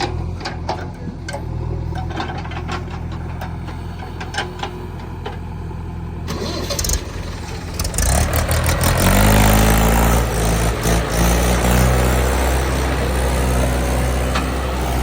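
Diesel machinery engine idling with scattered clicks and clanks. From about seven seconds in it grows louder, revs up just after eight seconds, and then runs loudly and steadily.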